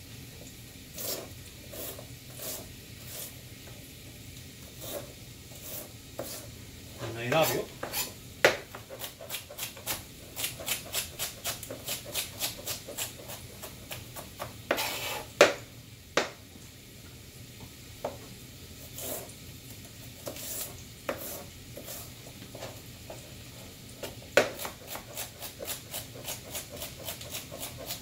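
Chef's knife chopping celery on a plastic cutting board: sharp knocks of the blade on the board, in quick runs of several a second with single heavier strokes between.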